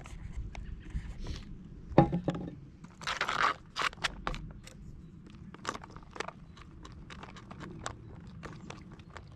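A freeze-dried meal pouch crinkling and crackling as it is handled and its zip seal pressed shut, with hot water just poured in to rehydrate the meal. A single knock about two seconds in is the loudest sound.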